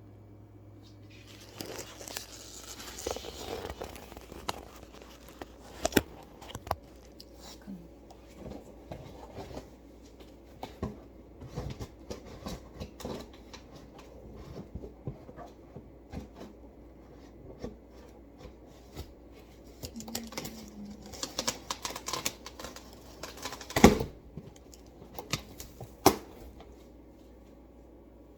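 Packaging being opened and handled by hand: tearing, crinkling and rustling with scattered clicks and knocks. The loudest knock comes near the end.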